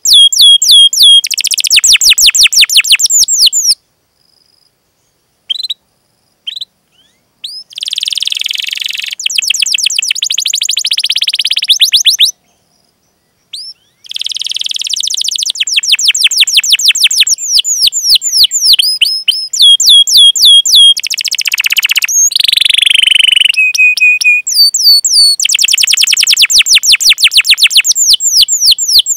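Canary singing: fast, tightly packed trills of repeated high chirping notes. The song breaks off twice for a couple of seconds, with only a few scattered notes in the gaps.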